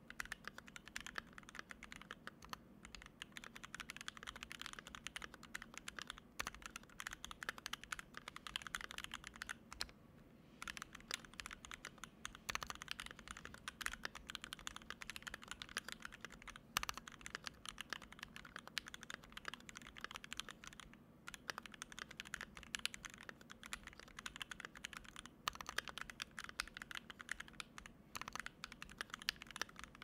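Steady typing on a KBD67 MkII mechanical keyboard with a brass plate, c³ Fierce Girl switches lubed with Krytox 205g0 and filmed, GMK keycaps, Durock stabilizers and case foam: a rapid run of keystrokes with short pauses about ten and twenty-one seconds in.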